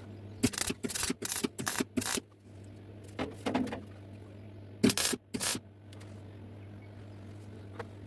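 Metalwork on a patched exhaust back box: a quick run of about six short, sharp bursts in the first two seconds, a rougher scraping patch around three and a half seconds in, and two or three more sharp bursts around five seconds, over a steady low hum.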